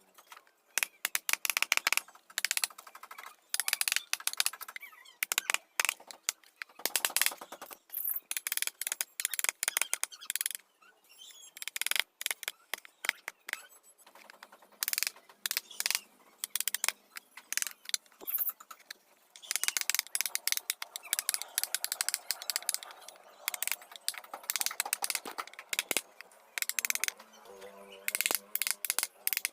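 Chisel being struck with a mallet while hand-carving teak: rapid runs of sharp taps in clusters, with short pauses between runs.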